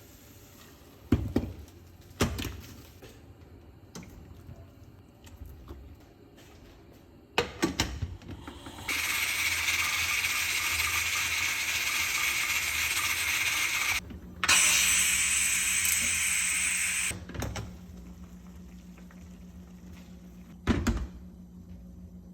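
Kitchen sounds: a few sharp knocks of utensils, then water running steadily for about five seconds, stopping briefly and running again, louder, for about three seconds, with a low steady hum starting under it.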